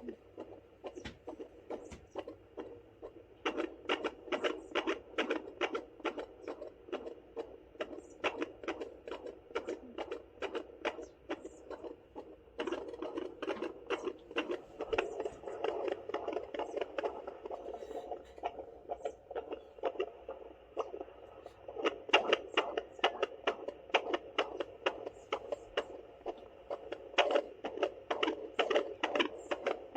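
Fetal heartbeat at 32 weeks through a handheld fetal doppler's speaker: a fast, steady train of whooshing pulses over a low hum, fading in places as the probe shifts and loudest in the second half.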